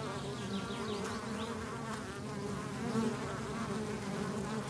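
Flying insects buzzing steadily, the pitch of the buzz wavering up and down as they move about.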